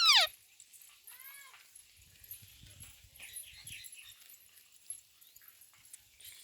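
Indian green parrot calling: a loud, quick screech that sweeps steeply down in pitch right at the start, then a softer arched call about a second in and faint chattering a couple of seconds later.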